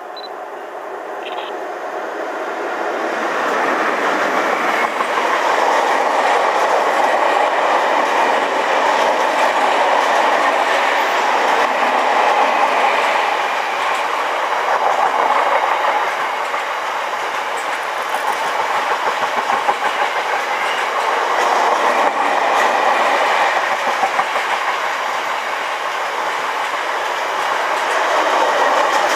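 Class 60 diesel locomotive hauling a long train of oil tank wagons past at close range. The noise swells over the first few seconds as the locomotive nears and passes. The wagons' wheels then run by on the rails in a steady rush that rises and falls a little.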